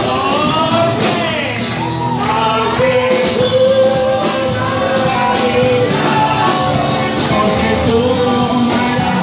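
Live band music with a singer.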